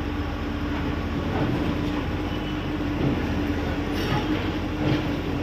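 Heavy diesel excavator machinery running, a steady droning hum over a low rumble.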